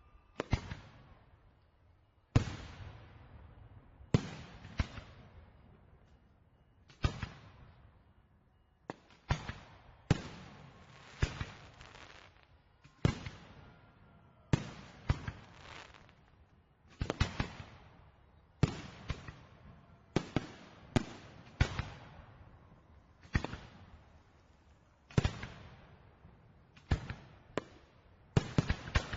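Fireworks shells bursting one after another, sharp bangs with fading echoing tails every second or two, some coming in quick pairs and clusters.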